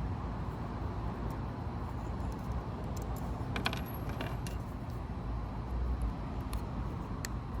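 Light metallic clicks and clinks of small parts and tools being handled while working on a small-scale RC crawler chassis: a short cluster about halfway through and one more near the end, over a steady low background rumble.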